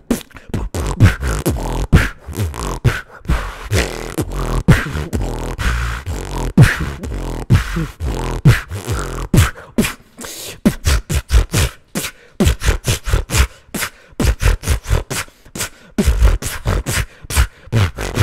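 Freestyle beatboxing, close-miked on a handheld recorder: mouth-made kick drums with deep falling thumps, and sharp snare and hi-hat clicks in a quick rhythm. About ten seconds in the clicks come faster and denser.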